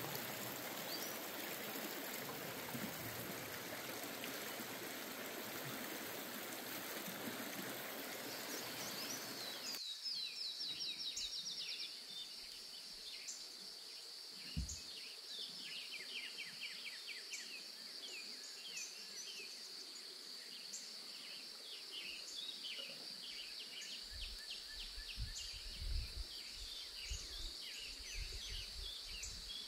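A mountain stream rushing steadily. It cuts off suddenly about ten seconds in and gives way to birds chirping over a steady high insect buzz, with a few low bumps near the end.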